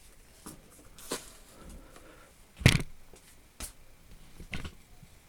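Hard objects being handled: five or so separate knocks and clicks, the loudest about two and a half seconds in.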